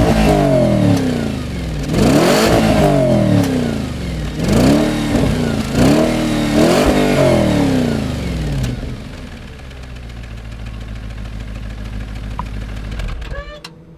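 Audi RS4's 4.2-litre V8 blipped up and back down several times in quick succession, then settling to a steady idle.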